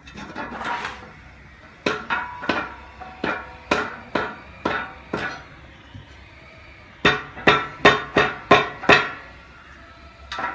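A hammer tapping a natural stone floor slab to bed it level: a series of sharp, ringing knocks, about nine uneven blows, then after a pause six quicker ones and a last one near the end. A short scraping noise comes just at the start.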